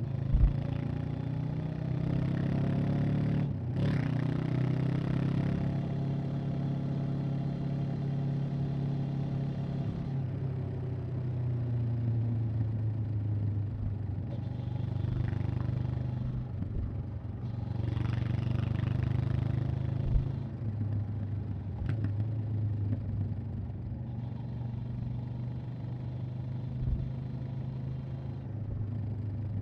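Honda CB500X's parallel-twin engine and exhaust running under way, its pitch dipping and rising with throttle and gear changes. A few short knocks are heard during the ride.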